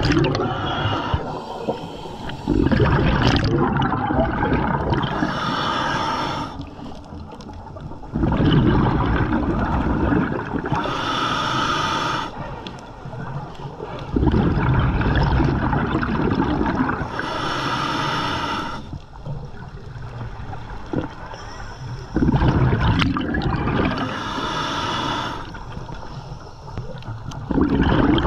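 Scuba diver breathing through a regulator underwater, in slow, regular breaths about every six seconds. Each inhale is a hiss through the regulator and each exhale a long burst of bubbling exhaust bubbles.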